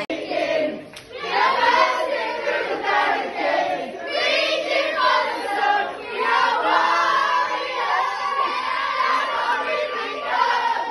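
A crowd of people singing and chanting together, with shouts mixed in; the voices dip briefly about a second in.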